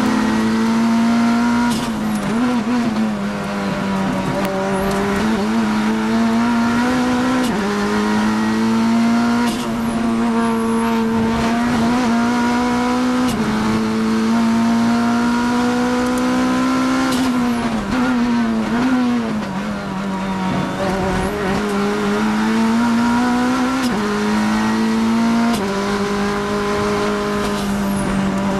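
Onboard sound of a Kia GTS race car's engine at racing speed, heard inside the cockpit. The engine note climbs steadily under full throttle and drops sharply at each upshift. It falls and wavers a few times as the car brakes and downshifts for corners, then pulls up again.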